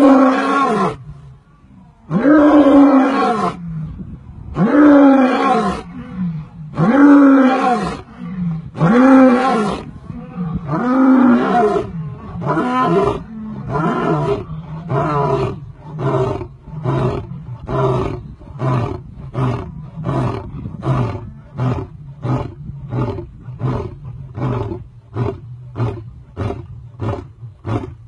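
Lion roaring in a full bout: about six long, deep roars roughly two seconds apart, each falling in pitch, then a long series of short grunts that come faster, about one a second, and grow fainter toward the end.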